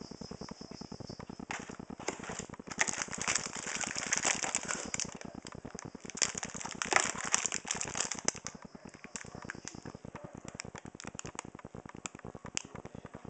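Plastic film packaging of a pack of sausages crinkling and crackling as it is handled, loudest in the middle, over a steady low buzz. It thins to a few scattered clicks near the end.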